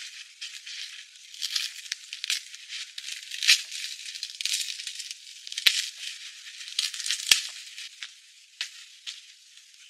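Split logs and bark being handled and laid on a log shelter roof: dry crackling, scraping and rustling, with two sharp wooden knocks around the middle, about a second and a half apart. The sound is thin, with no low end.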